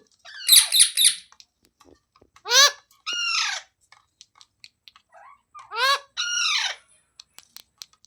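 Pet parrot calling: a burst of quick shrill squawks about half a second in, then a two-note call (a short note that rises and falls, followed by a longer falling one), given twice about three seconds apart.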